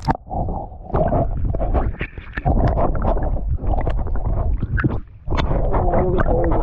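Muffled gurgling and rumbling of seawater against a camera held underwater, with scattered knocks and clicks. The rumble drops away briefly about five seconds in.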